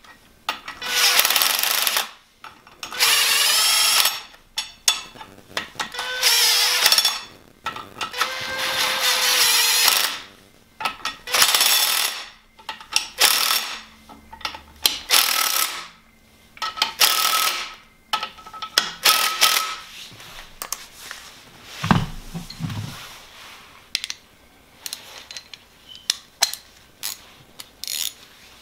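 Cordless power tool driving the central crank hub bolt of a BMW N54 engine in repeated bursts of a second or two with short pauses between, its motor pitch wavering within each burst; the bursts grow shorter later on. One dull knock in the later part.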